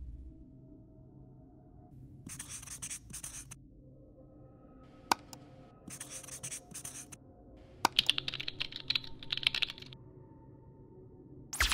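Marker-pen writing sound effects: two short spells of scratchy strokes, separated by sharp single clicks, then a quick burst of rapid computer-keyboard typing about eight seconds in. A brief swish comes at the very end.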